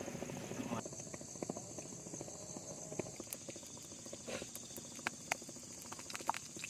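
Eating fried rice: scattered small clicks and taps of a spoon and chewing, over a steady high insect drone from the forest.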